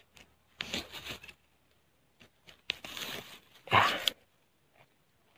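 A hand blade digging and scraping in dry soil around a wild gadung tuber, crunching earth and tearing roots, in three short bursts, the loudest about four seconds in.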